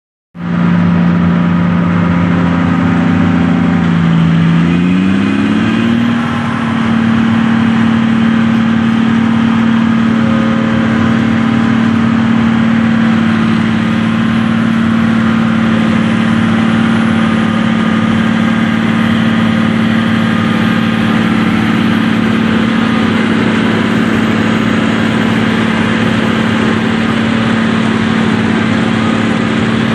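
John Deere self-propelled forage harvester running while chopping maize, with a steady engine and chopper drone. About five seconds in the pitch climbs to a higher note and holds there.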